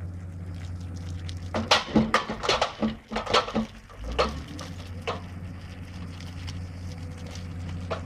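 Heavy diesel engine of a tracked rock drill rig running steadily while it crawls forward. About a second and a half in comes a quick run of loud, sharp knocks, about eight in two seconds, ending with a low thump near the middle.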